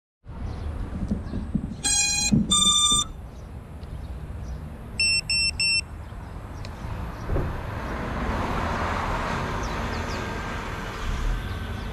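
Electronic beeps: two tones with many overtones, the second higher, then three short identical higher beeps about five seconds in. Under them a steady low rumble, with a hiss swelling near the end.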